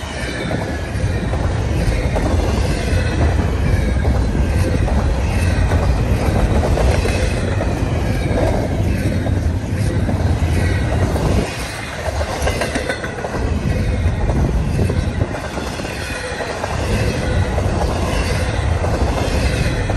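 Double-stack container well cars of a long intermodal freight train rolling past, wheels clattering and rumbling steadily on the rails. The sound dips briefly about eleven seconds in.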